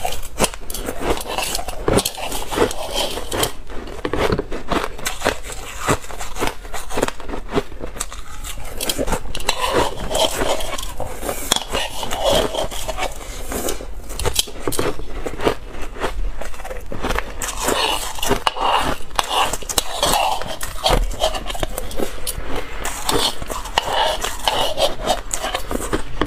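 Crushed ice being chewed close to a clip-on microphone: dense, rapid crunching and crackling that goes on without a break.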